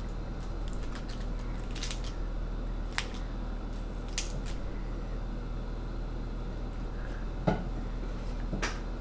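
Crisp iceberg lettuce leaves crinkling and rustling as they are pressed by hand onto a sandwich, with a few short crisp ticks. A soft thump about seven and a half seconds in is the loudest sound. A steady low hum runs underneath.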